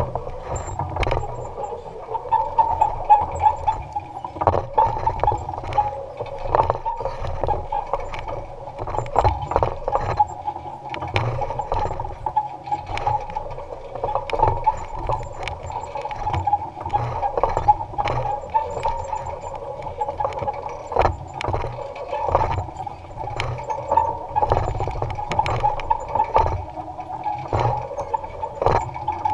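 Electric-powered Allis-Chalmers Model G tractor running through the rows with its basket weeder, a steady wavering hum under frequent knocks and rattles from the tractor and implement.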